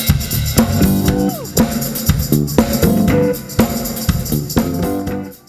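Live band music with a drum kit and held instrument notes, fading out about five seconds in.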